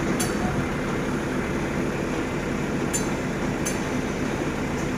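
Scania R580's V8 diesel engine idling steadily. Three sharp metallic clicks sound over it, just after the start, about three seconds in and again shortly after.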